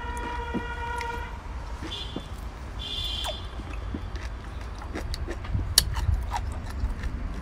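A horn holding one steady tone that cuts off about a second in, with two short higher toots soon after, over a steady low rumble. Then scattered wet clicks and smacks of a mouth chewing and sucking on a piece of sea anemone.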